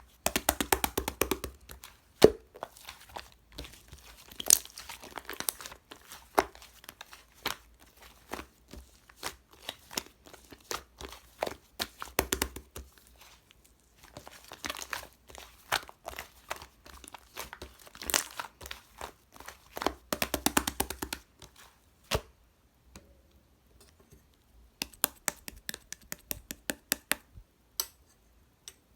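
Bread-textured slime being squeezed, stretched and pressed by hand, giving bursts of dense crackling and popping clicks with short pauses between handfuls.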